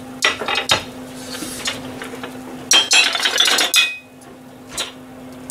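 Kitchen clatter of metal utensils and dishes: two sharp clinks, then about a second of dense rattling. A steady low hum cuts off just after the rattling, followed by one more knock.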